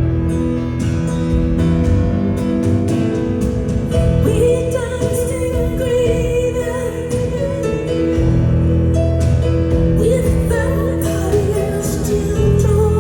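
Live concert music: a band playing, with a woman's sung melody coming in about four and a half seconds in.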